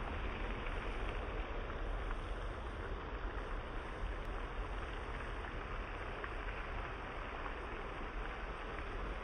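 Steady rushing hiss of a pond's spray fountain, with a low, uneven rumble of wind on the microphone.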